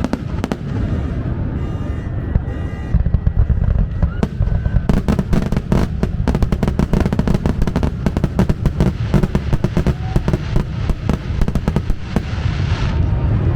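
Fireworks display exploding, scattered bangs at first, then a dense rapid barrage of overlapping bangs from about five seconds in, easing off near the end.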